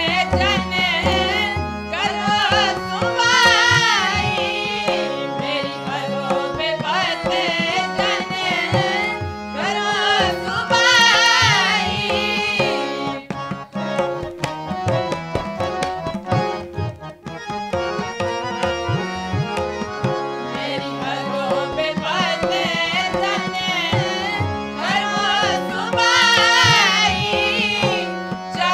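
Sikh kirtan: voices singing over two harmoniums holding steady chords and a tabla keeping a running rhythm. The singing thins out for a few seconds around the middle while the harmoniums and tabla carry on.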